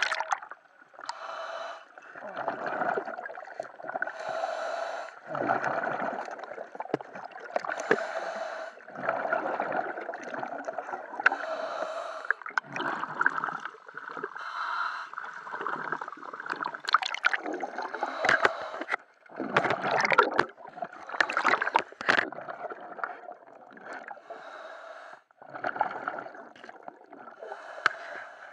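Scuba diver breathing through a regulator, heard underwater: a run of breaths, each a second or two long, with the hiss of each inhale and the gurgle of exhaled bubbles.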